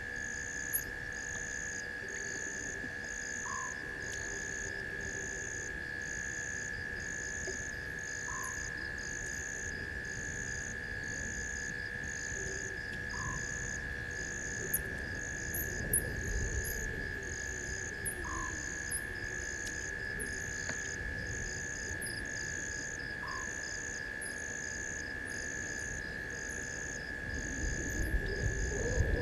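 Night chorus of insects and frogs: a steady high trill with a regular chirp about once a second above it, and a short call every few seconds. Low rumbling noise rises near the end.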